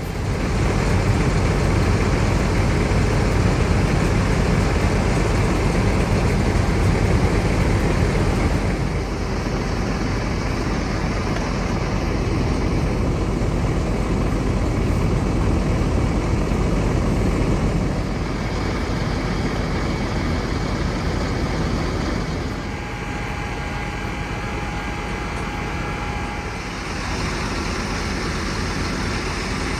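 Heavy vehicle engine running steadily with mechanical noise, the sound dropping in level in steps about 9, 18 and 22 seconds in.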